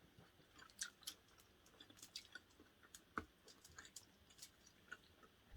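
Faint chewing: irregular soft mouth clicks and smacks of someone eating.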